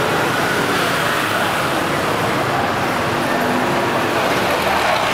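Steady road traffic, with cars and motorbikes passing.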